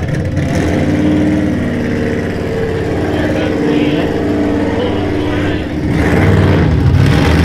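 Mud bog truck's engine revving, its pitch rising and falling, getting louder about six seconds in.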